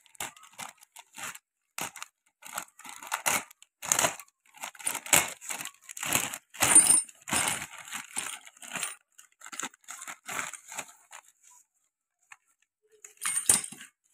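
A plastic packet crinkles and rustles in irregular bursts as it is handled and opened, and the new metal clutch release fingers inside clink. Near the end comes a louder clatter, as the fingers are tipped out onto the sheet.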